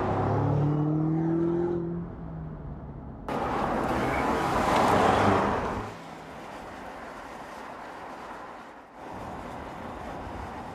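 BMW M5 Competition's twin-turbo V8 accelerating, its pitch rising over the first two seconds. About three seconds in it cuts suddenly to a louder rush of engine and road noise, which drops away about six seconds in to a steadier, quieter drone.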